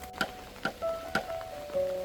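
Background music: held notes changing in pitch, with a sharp tick about twice a second.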